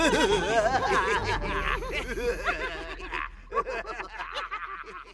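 A cartoon character laughing gleefully in a rapid, pulsing voice. The laugh dies away over the last second or two.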